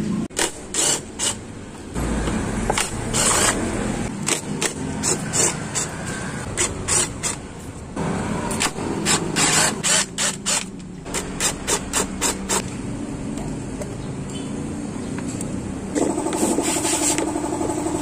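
Many short clicks and rattles of screws and plastic body panels being worked off the underside of a Yamaha NMAX scooter with a cordless drill-driver, with some scraping. A steady machine hum starts near the end.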